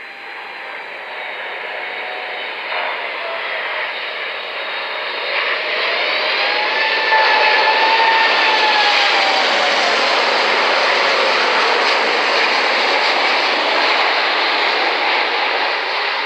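Boeing 747-8F freighter's four GEnx-2B turbofans on final approach. The jet noise grows louder as the aircraft comes close, with a whining tone that rises and then falls away in pitch about six to nine seconds in. It holds at its loudest after that and eases slightly near the end.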